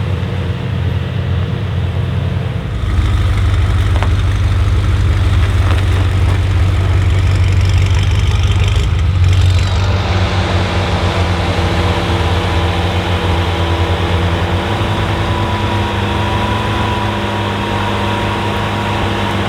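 BMW M5 F90's twin-turbo 4.4-litre V8 idling through a Supersprint exhaust. About three seconds in it gets louder, with a deep pulsing low end. About ten seconds in it settles to a smoother, steady idle.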